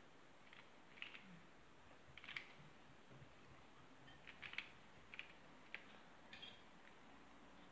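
Square-1 puzzle being turned by hand: faint, irregular plastic clicks as its layers turn and slice, with a quick cluster of clicks about four and a half seconds in.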